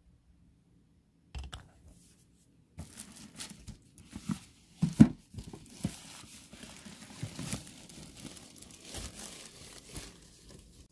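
Packaging crinkling and tearing as a boxed device is unwrapped and pulled out. It starts with a brief rustle, then runs on as steady crackling from about three seconds in, with a few sharp louder rips, the loudest about five seconds in.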